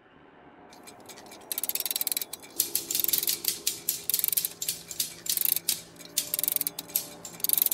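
Clockwork sound effect: bursts of rapid ratcheting clicks, like gears being wound, coming in about a second and a half in over a faint low drone that swells up from near silence.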